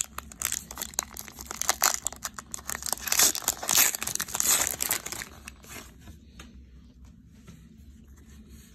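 Trading-card pack wrapper being torn open and crinkled by hand: a dense run of crackles for about five seconds, then dying down to faint rustling.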